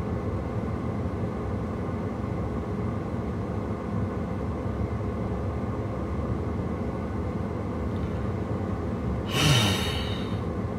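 Steady low rumble of a stationary car running, heard from inside the cabin. A brief louder sound comes about nine seconds in.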